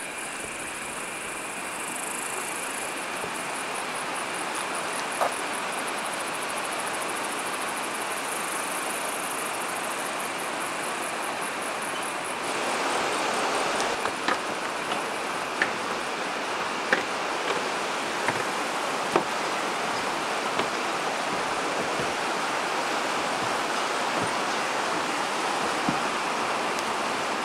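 Steady rush of a river running over rocks in a gorge. From about halfway, sharp knocks come roughly once a second, footsteps on the wooden boards of a footbridge.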